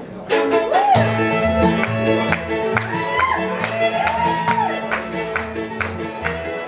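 Live bluegrass band playing an instrumental break: a fiddle takes the lead with sliding notes over strummed acoustic guitar and a steady bass line. The full band comes in about a second in.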